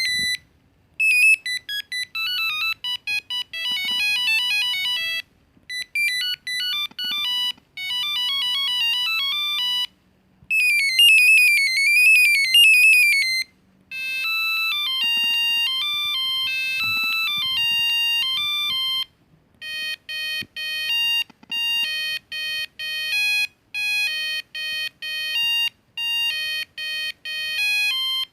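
Ericsson R310s mobile phone playing its built-in monophonic ringtones one after another. There are about five different beeping tunes, each note sounded alone, with short pauses between them. One tune is a rapid up-and-down warble.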